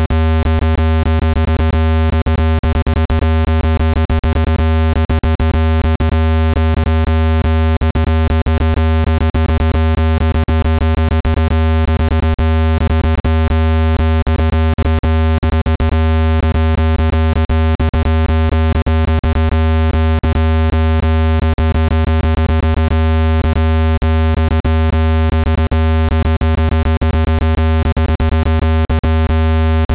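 Speaker-cleaning tone: a loud, steady, low-pitched electronic hum with a ladder of overtones and frequent clicks running through it, held unchanged. It is meant to vibrate a phone or Bluetooth speaker's grille and shake out dust.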